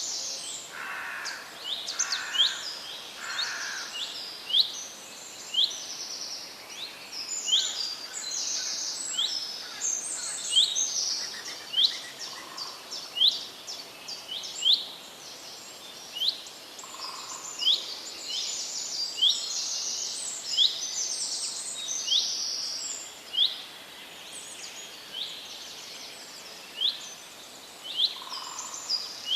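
Several wild birds calling over a faint outdoor hiss. One bird repeats a short, sharp falling note about once a second, among higher twittering chirps.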